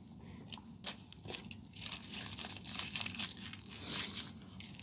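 Candy wrapper crinkling as it is scrunched up in the hands, in irregular small crackles that are busiest near the end.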